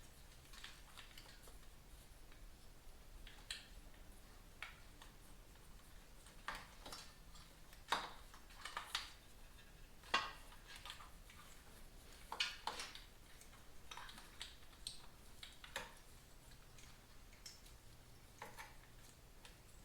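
Irregular light clicks and taps of hands working on a motorcycle's parts, with a few sharper knocks about eight, ten and twelve seconds in.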